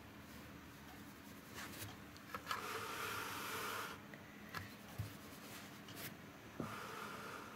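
A hand stroking a cat's fur, a soft brushing rub. The two longest strokes come about two and a half seconds in and again near the end, with a few light taps between.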